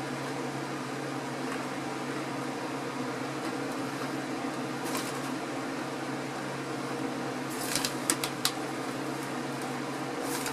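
Steady hum of an electric fan, with a few sharp crinkles of the foil chip bag being handled about eight seconds in and again near the end.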